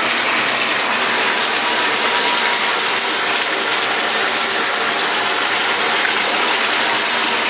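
Bathtub tap running, water pouring steadily into the tub.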